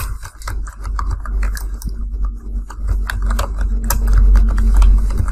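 Typing on a computer keyboard: a quick, irregular run of key clicks over a steady low hum.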